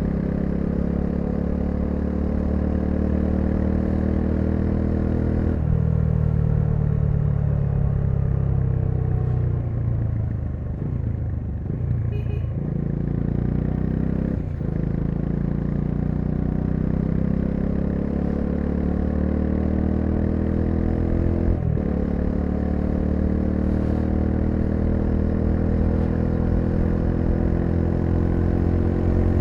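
Bajaj Dominar 400's single-cylinder engine pulling under way, its pitch climbing through the gears with a sharp drop at each of three upshifts. For a few seconds near the middle it eases off and falls in pitch before pulling up again.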